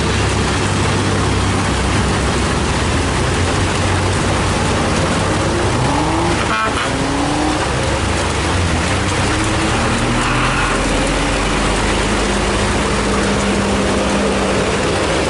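Heavy rain hissing steadily over the low hum of a Hino diesel truck engine running at low speed. Around six seconds in, the engine note climbs and drops as it pulls.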